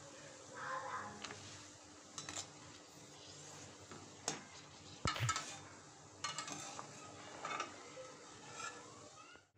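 A perforated metal skimmer spoon stirring whole red chillies in boiling water in a metal pot, scraping and knocking against the pot in a few sharp clicks. The loudest knock comes about five seconds in.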